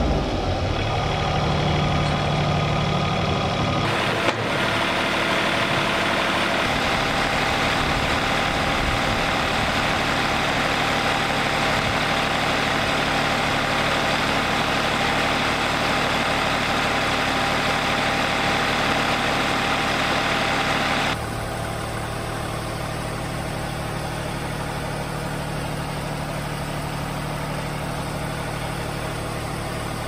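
Wood-Mizer LT40 Wide band sawmill running, making a cut through a pine log with its engine steady under load. About 21 seconds in, the sound drops suddenly to a quieter, steady engine hum.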